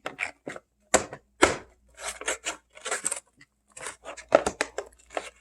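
Toy packaging being handled and opened by hand: a run of irregular clicks, taps and short crinkling, tearing rustles of plastic and cardboard.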